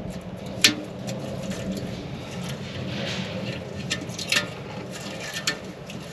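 Sharp clicks and taps of handling and hand tools during a tyre plug-patch repair, the loudest about half a second in and a few more later, over a steady low hum.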